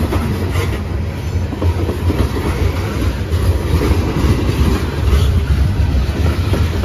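Freight train of Norfolk Southern coal hopper cars rolling past close by: steel wheels on the rails giving a loud, steady low rumble with some clacking over the rail joints.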